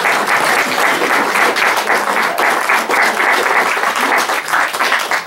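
Audience applauding, many hands clapping in a dense, steady patter that eases slightly near the end.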